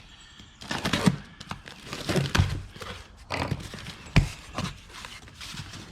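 A box being handled and opened by hand: a series of knocks and scuffs, with one sharp thud about four seconds in.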